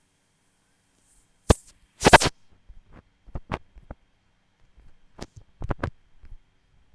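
Irregular clicks and knocks of something being handled, beginning a second and a half in; the loudest is a short clatter about two seconds in, followed by lighter taps.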